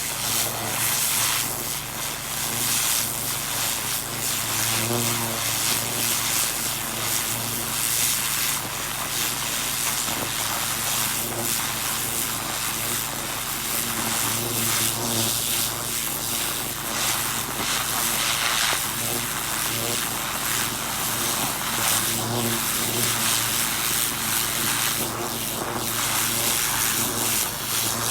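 Pressure washer running steadily, its motor humming under the hiss of the high-pressure water jet tearing into soil and bark mulch to uproot weeds.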